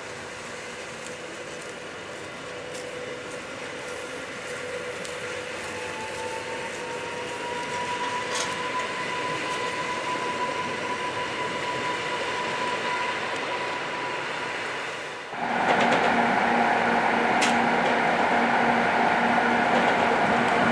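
Electric multiple unit train running over a bridge, with a whine that rises slightly about six seconds in. About fifteen seconds in it changes abruptly to louder, steady running noise inside a moving train carriage.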